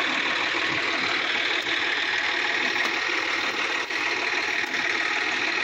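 Sonalika DI-50 RX tractor's diesel engine running steadily, held at a low, even speed.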